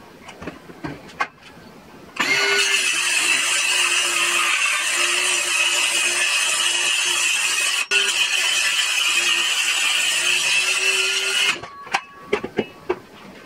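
INGCO cordless circular saw cutting through a plywood sheet along a straight-edge guide, running steadily for about nine seconds with a momentary break about halfway, then stopping. A few handling clicks and knocks come before the saw starts and after it stops.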